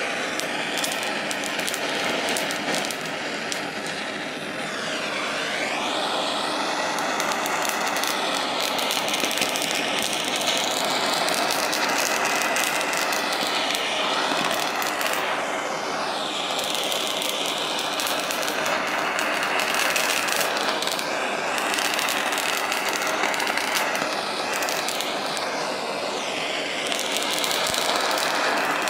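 Handheld gas blowtorch burning with a steady hiss as its flame scorches a bell pepper's skin, the tone of the hiss sweeping up and down as the flame is moved over the pepper, with small crackling clicks throughout.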